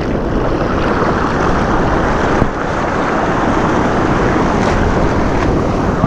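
Ocean whitewater rushing and churning around the microphone as a breaking wave's wash surges over and around a person sitting in the surf: a loud, steady rush of water noise.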